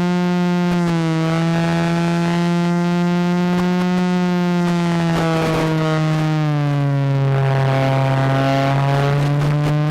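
E-flite Inverza's electric motor and propeller whining in flight, a steady tone that drops as the throttle is eased about six and a half seconds in and rises again near the end, with bursts of wind noise.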